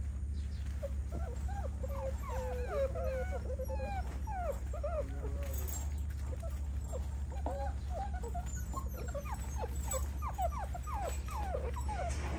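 A litter of eight-week-old American bully puppies whining and whimpering, many short high cries overlapping throughout, over a steady low hum.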